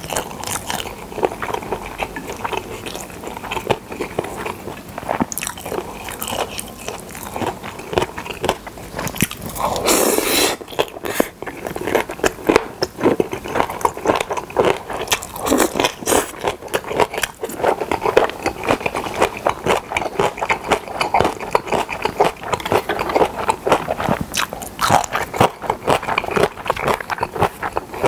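Close-miked chewing of pressed boiled pork slices (pyeonyuk) and seasoned dried radish strips (mumallaengi): wet, sticky mouth clicks and crunchy bites, with one louder, longer mouth sound about ten seconds in.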